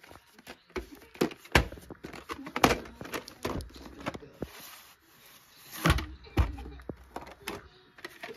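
Handling noise of a VHS tape and its cardboard sleeve: an uneven series of knocks and clicks as the plastic cassette and sleeve are picked up, moved and set down, with a soft sliding hiss about halfway through.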